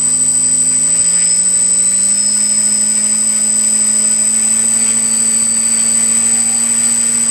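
DJI Flamewheel F450 quadcopter's four motors and propellers running at low throttle while it still sits on the ground: a steady buzzing hum that rises a little in pitch about two seconds in, with a constant high-pitched whine above it.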